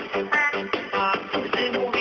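An electronic dance-pop song with a voice singing, played into a CB radio channel and heard through a CB receiver.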